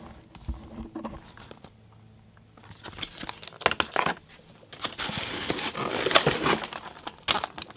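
Plastic blister packaging and card backing crinkling and clicking as packaged die-cast cars are handled and the next one is taken from a cardboard case. After a quiet stretch it starts about three seconds in as a run of clicks and rustles, busiest in the second half.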